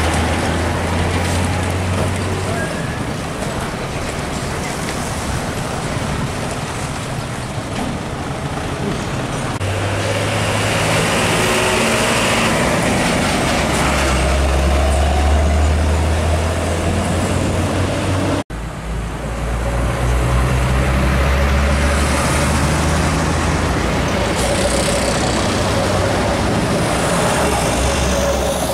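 Heavy diesel trucks driving past close by: a deep, steady engine drone with tyre and road noise, swelling as each truck passes. The sound cuts out for an instant about two-thirds of the way through, then picks up again.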